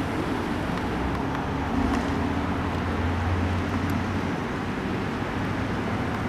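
Steady traffic noise, with a low vehicle rumble that swells about three seconds in.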